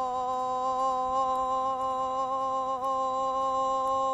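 One long held note at a steady pitch with a slight waver, rich in overtones and voice-like, like a hummed tone.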